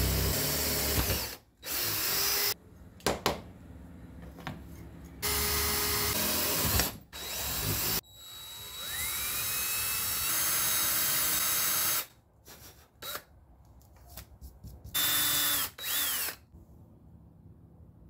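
Cordless drill boring pin holes, run in several separate bursts, first into a G-10 fiberglass latch strip and then into the hatch lid. The longest run, about halfway through, rises in pitch as the motor spins up, and two short bursts come near the end.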